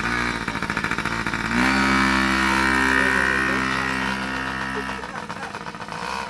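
Mini dirt bike's small single-cylinder engine idling, then revved up about a second and a half in and held at a steady higher speed as the bike pulls away, fading out about five seconds in as it rides off.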